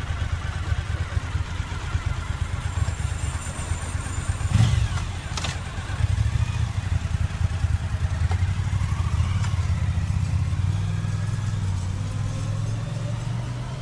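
A motor vehicle engine running with a steady low rumble, with two sharp knocks a little before halfway.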